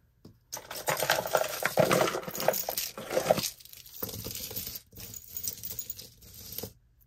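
Costume jewelry jangling and clinking: metal chains and hard framed pieces rattling against each other as they are lifted, handled and set down on the table. The clatter is loudest for the first few seconds, then goes on more softly.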